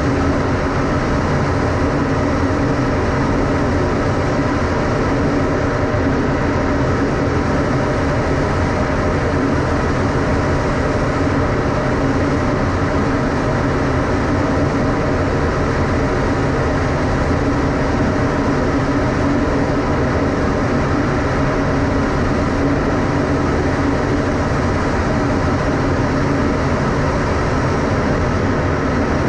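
Fighter jet cockpit noise in flight: the engine and rushing air make a loud, constant drone with several steady hum tones.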